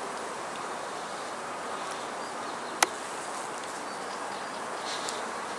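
Honeybees buzzing around an open hive being inspected, a steady hum of many bees, with a single sharp click a little under three seconds in.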